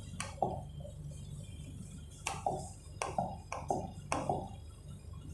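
A pen tapping and clicking against an interactive display screen while marking a diagram: about nine short sharp taps in irregular groups, each with a brief ring, over a steady low hum.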